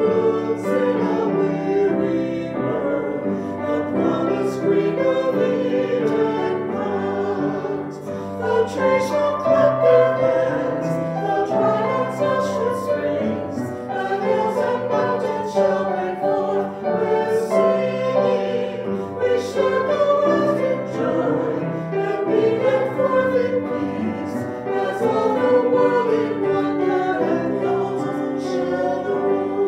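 A small group of singers singing a hymn verse and refrain together in harmony, with sustained, continuous phrases.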